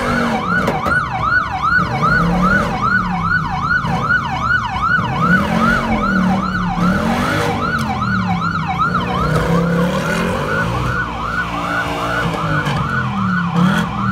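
Police car siren on a fast yelp, sweeping up and down about three times a second, with a lower sound rising and falling slowly beneath it.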